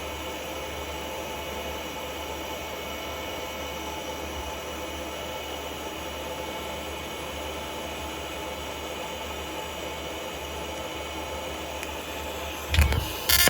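TIG welding arc on titanium exhaust tubing, a steady hiss with a constant buzz. Near the end, two loud sharp knocks.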